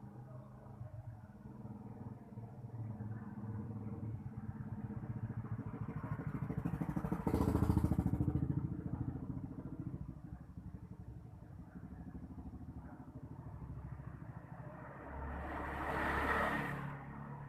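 A motor engine running with a fast, even pulse. It swells louder about seven seconds in and again near the end.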